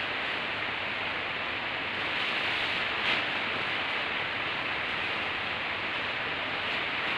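A steady, even hiss, with the tent's ripstop polyester rainfly rustling as it is lifted and draped, and a brief louder swish about three seconds in.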